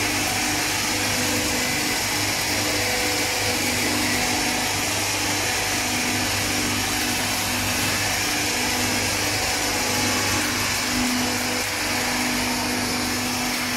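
Small continuous frying machine running under test: a steady hum and hiss from its burner and its oil-circulation and vacuum oil-filter pumps, all running together with the oil circulating.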